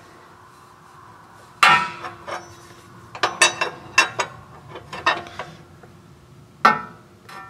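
Steel hose fittings and a large 1¾-inch socket clanking and clinking against each other and the filter head while the bypass filter nut is being readied to tighten. There is a sharp clank about a second and a half in, a quick run of clinks in the middle, and another loud clank near the end.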